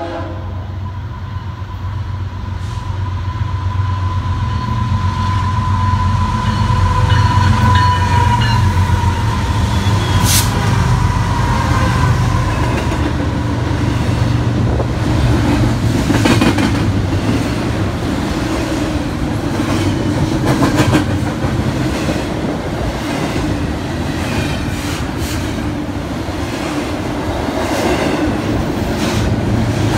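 A BNSF double-stack intermodal freight train passing close by. The locomotives' low diesel hum and a thin steady whine fill the first dozen seconds. After that the container well cars rumble past with a dense run of clickety-clack wheel clicks over the rail joints.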